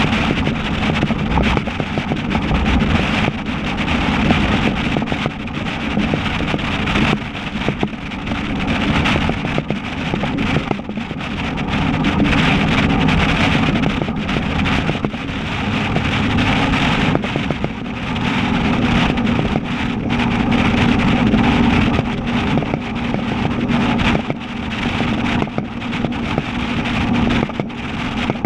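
Dodge Ram 1500's 5.7 L Hemi V8 running steadily at cruise through straight-piped true dual exhaust with Dynomax Race Bullet mufflers, a constant low drone. Wind buffets the microphone over it.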